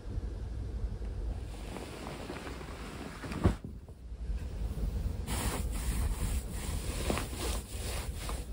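Hands rubbing and patting a pillow and duvet: soft fabric rustling that turns into a run of short brushing strokes in the second half, over a low steady rumble. A single sharp thump about three and a half seconds in is the loudest sound.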